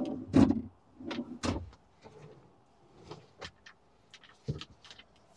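Camper-van kitchen drawers and cabinet doors with soft-close runners and latches being pulled open and pushed shut. There are a few sliding knocks in the first second and a half, light clicks after that, and a dull thump near the end.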